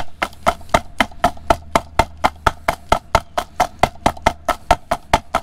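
Heater blower motor's plastic squirrel-cage fan rapped again and again against concrete, about four sharp knocks a second, shaking packed rat's-nest debris out of the cage.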